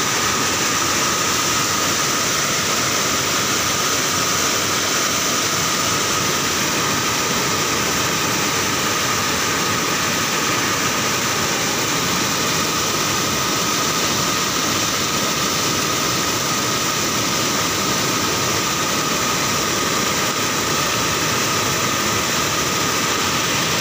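Muddy floodwater of a swollen river rushing and churning in white turbulence: a loud, steady roar of water.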